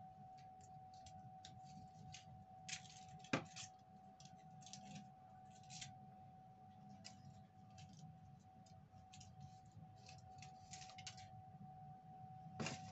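Quiet handling noises: faint small clicks and rustles, with one sharp click about three seconds in, over a faint steady hum.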